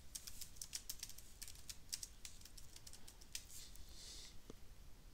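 Computer keyboard typing: a faint, quick run of keystrokes.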